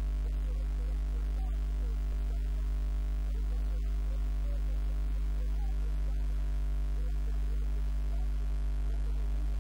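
Steady electrical mains hum, a low 50 Hz drone with a stack of overtones, unchanging throughout.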